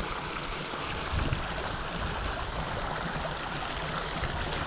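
Small creek running over rocks in a little cascade, a steady rush of flowing water.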